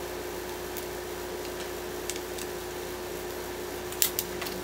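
A few light clicks and taps from hands handling the aluminium underside of a Dell XPS 13 laptop, with a couple of sharper clicks about four seconds in, over a steady background hiss and faint hum.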